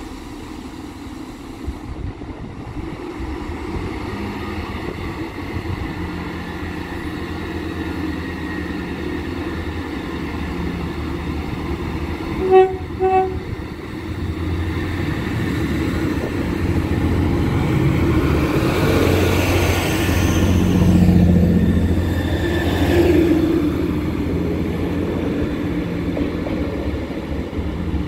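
A diesel multiple unit train approaches and sounds two short horn toots of the same pitch about halfway through. It then runs past, its engine and wheel noise rising to a peak and easing off as it moves away.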